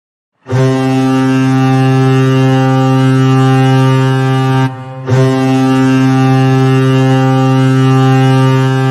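Goal horn blaring two long, steady, low-pitched blasts: the first about four seconds long, a brief break, then a second of about four seconds.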